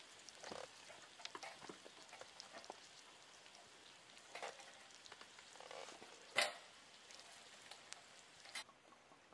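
Meat sizzling on a grill over a wood campfire, the burning wood crackling and popping, with one sharp pop about six seconds in.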